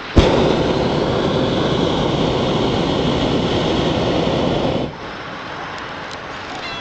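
Hot-air balloon's propane burner firing in one blast of about four and a half seconds: a loud, steady rush that starts abruptly and cuts off suddenly.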